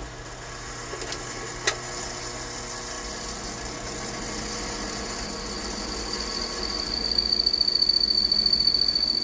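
Bench drill press running, its motor and belt-driven spindle making a steady mechanical hum with a high whine that grows louder in the second half. A couple of sharp clicks about a second in.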